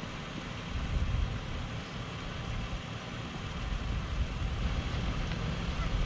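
Wind buffeting the microphone in irregular low gusts over a steady rushing noise.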